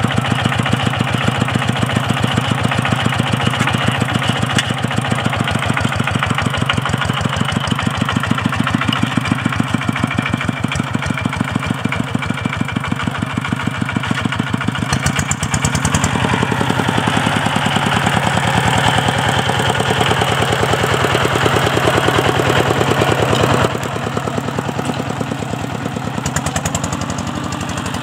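Single-cylinder diesel engine of a two-wheel walking tractor running under load as it pulls a loaded trailer, with a steady rapid beat of firing strokes. It is a little quieter for the last few seconds.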